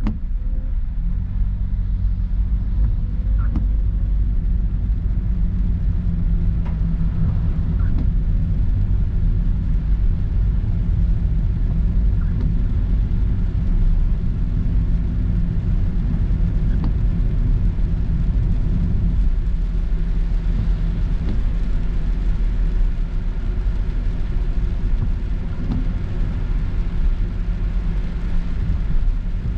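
Car driving through heavy rain, heard from inside the cabin: a steady low rumble of engine and road noise under an even hiss of tyres on wet road and rain.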